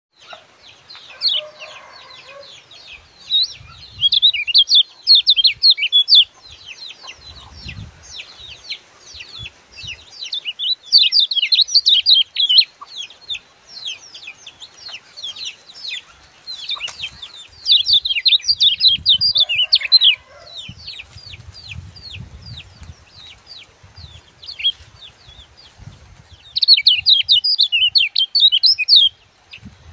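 A small caged songbird, a kecial kuning, singing in long rapid runs of high chattering chirps. It sings in four loud bouts of a few seconds each, with quieter twittering between them.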